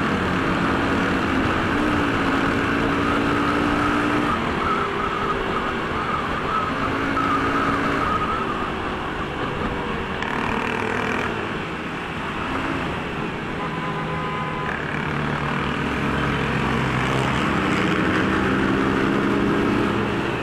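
Motorcycle engines running on a group ride, several pitches shifting up and down as the bikes change speed, over steady road and wind noise.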